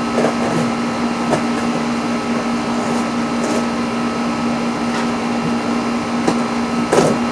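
A steady mechanical hum, with a few short knocks and rustles as cardboard and foam packaging is handled, the loudest near the end.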